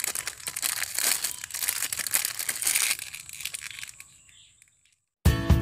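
Clear plastic packaging bag crinkling and rustling as the sealed bag holding a voltmeter is handled and opened, dying away about four seconds in. Acoustic guitar music starts near the end.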